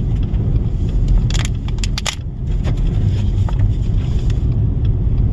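Dust-storm wind buffeting the microphone with a loud, steady low rumble, and scattered sharp clicks and ticks, most of them between one and two and a half seconds in.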